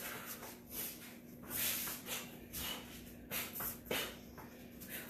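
A person shadowboxing an elbow-and-knee combination: a series of short, sharp exhales with the strikes and feet scuffing on foam floor mats.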